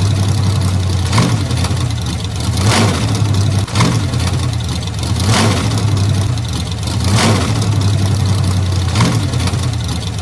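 Old car engine running with a steady low hum, with a brief louder pulse about every one to two seconds.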